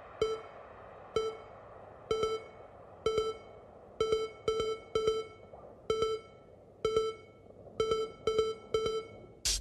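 Electronic music: short synthesizer blips repeating roughly once a second, some in quick pairs, over a faint background, with a loud drum hit coming in near the end.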